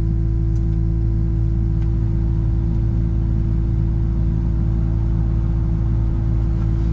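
Excavator's diesel engine running steadily, heard from inside the cab as a constant low hum with a steady tone over it.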